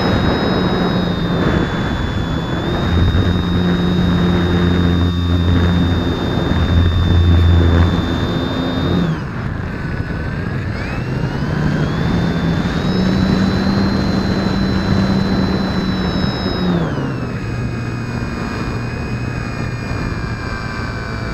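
Motor and propeller of a Hobbyking Hummer 3D foam profile RC plane, heard from a camera on the airframe, with wind rush. A high whine dips in pitch about nine seconds in, climbs back, and drops again about three-quarters through as the throttle changes.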